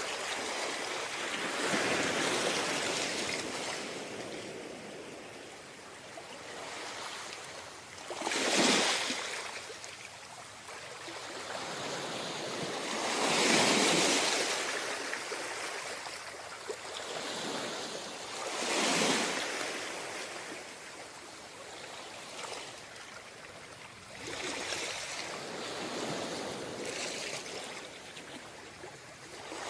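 Sea waves breaking and washing up a beach, a steady wash of surf with a louder break every few seconds, the largest about a third of the way in, near the middle and a little past it.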